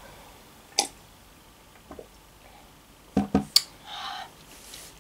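Tea being sipped and swallowed from a ceramic mug, with a single click a little under a second in, then a few knocks a little after three seconds as the mug is set down on the table, followed by a short breathy sound.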